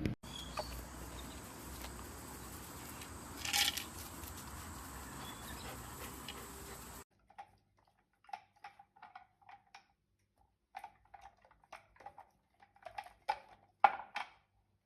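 A steady hiss with one short rustle, then a run of short, irregular crunches and clicks, loudest near the end: a dachshund eating, crunching its food.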